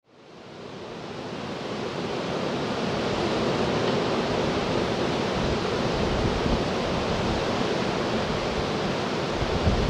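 Steady rushing noise of the Antonov An-124-100M's four Progress D-18T turbofan engines on approach, heard from a distance. It fades in over the first couple of seconds and then holds even.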